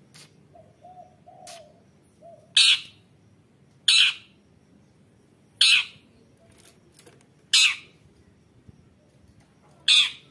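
Female long-tailed shrike calling: five short, harsh, rasping notes, each given on its own, about two seconds apart.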